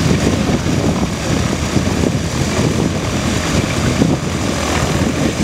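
Antonov An-2's nine-cylinder radial engine running with the propeller turning while the biplane stands on the ground; a loud, steady, rumbling drone.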